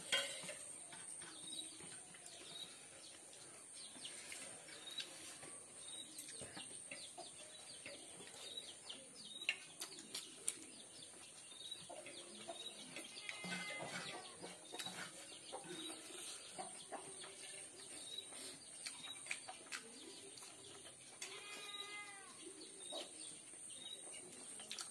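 Quiet eating by hand: fingers mixing rice on a metal plate, chewing and lip smacks, as small scattered clicks. Birds chirp in the background, with short chirps repeating evenly and two longer calls, and a faint steady high whine runs throughout.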